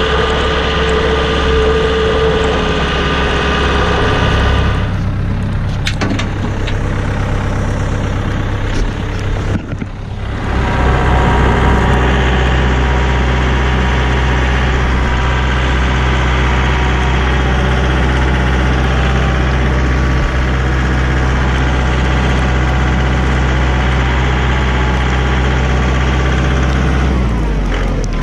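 Compact loader tractor's engine running steadily as the tractor drives along, its note shifting about five seconds in and dipping briefly near ten seconds before settling into a steady run again.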